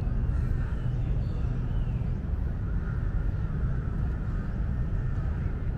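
Steady low outdoor background rumble, with a few faint wavering higher sounds drifting over it.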